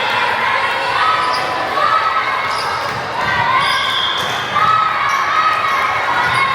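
Indoor volleyball match sounds echoing in a gym hall: the ball being hit and bouncing, with short high calls and voices from players and spectators.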